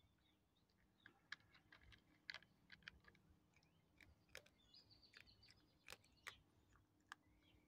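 A cat chewing dry kibble: a quick, irregular run of crisp crunches as the pellets break between its teeth.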